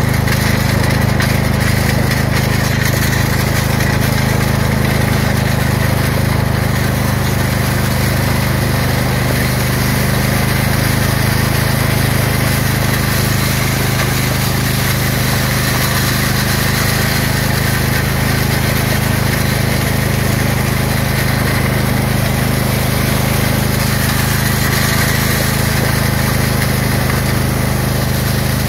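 Craftsman lawn tractor engine running steadily under load, towing a homemade wooden land plane that scrapes and grinds across loose gravel.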